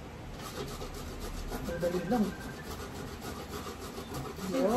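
Peeled cassava root being grated on a stainless steel box grater: a rapid run of rasping strokes.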